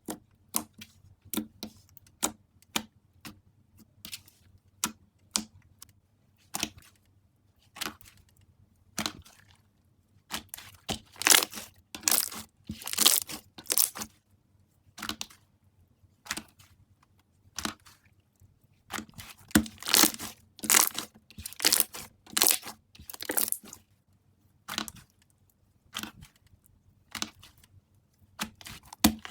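Slime being squeezed and pressed close to the microphone. It gives short sharp pops, about one or two a second at first, then longer crackly stretches around the middle and again near the end.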